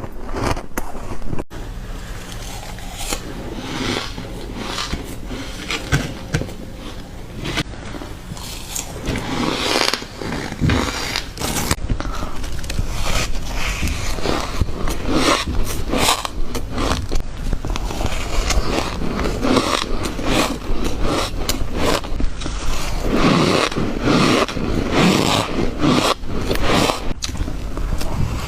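Shaved ice being bitten and chewed close to the microphone: a dense run of crunches.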